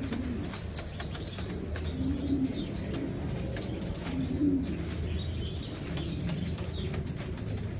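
Shakali pigeons cooing, with two louder coos about two and four seconds in, over high chirps, light clicks and a steady low hum.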